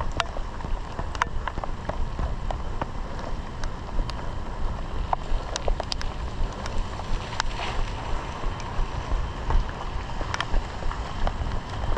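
Running footsteps in a steady rhythm, about two or three a second, under wind buffeting the microphone, with scattered sharp ticks.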